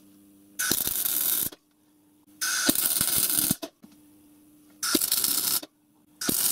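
Electric arc welding: four short welds of about a second each, joining steel suspension housings to their arms, with a steady low hum between them.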